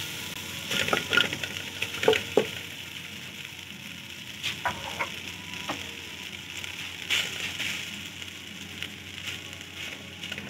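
Boiled biryani rice poured into an oiled steel kadhai, with a steady sizzle, while a metal spoon spreads it, knocking and scraping against the pan every second or so.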